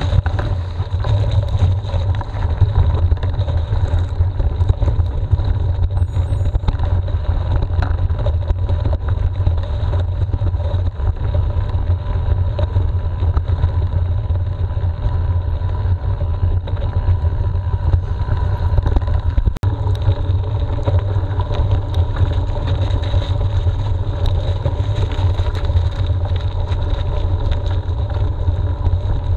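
Mountain bike riding along a rough, muddy track, picked up by a camera on the bike or rider: a steady deep rumble of tyres and wind on the microphone, with scattered clicks and rattles from the bike.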